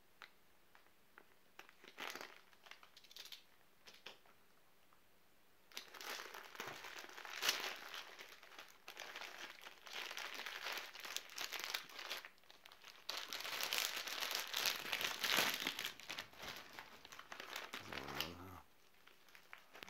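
Thick plastic outer bag of a US MRE crinkling as it is cut open and handled. A few light clicks at first, then dense crinkling from about six seconds in until shortly before the end.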